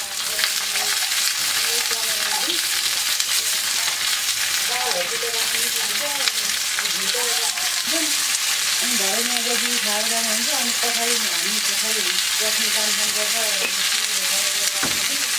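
Long beans and bitter gourd frying in hot oil in a pan, giving a steady sizzle.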